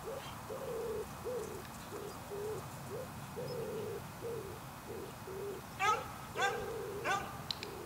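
A pigeon cooing in repeated low, soft phrases of short and longer notes. About six seconds in, three short rising calls cut in.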